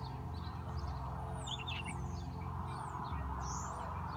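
Small birds chirping: short, high, falling chirps that come more often from about a second and a half in, over a steady low rumble.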